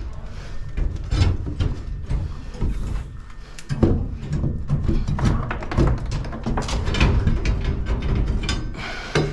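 Irregular knocks, clatters and scraping of hard materials being handled and worked by hand, several in each second with no steady rhythm.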